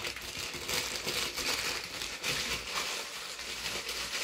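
Plastic packaging crinkling and rustling as it is handled, a steady stream of small crackles.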